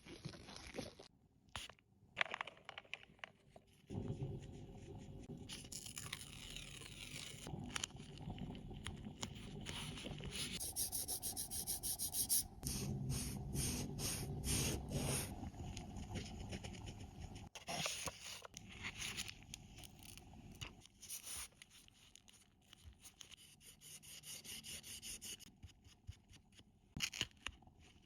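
Close-up manicure sounds: a nail file scraping over fingernails in runs of quick repeated strokes, with pauses between the runs.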